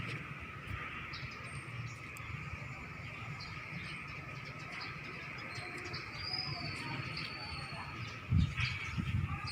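Wild birds chirping, with one longer whistled call about six seconds in, over a steady high background drone. A brief low rumble comes in near the end.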